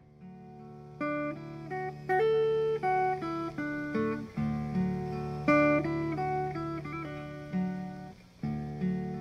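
Guitar instrumental: picked notes moving in a melody over a held low note that shifts about every four seconds.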